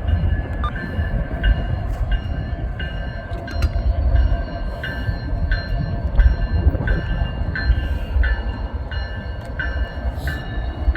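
Freight train rumbling past, with a bell ringing steadily about twice a second over it, and wind buffeting the microphone.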